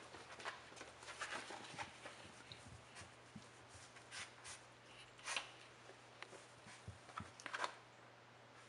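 Soft, scattered rustling and scratching of a rat terrier puppy scrabbling and nosing over a fleece blanket, with a couple of louder scuffs about five and seven and a half seconds in.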